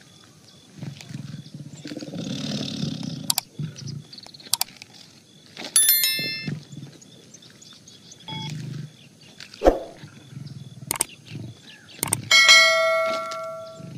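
Tiger growling several times, with sharp clicks between the growls. A short ding about six seconds in and a ringing bell chime over the last two seconds: subscribe-button click and notification-bell effects.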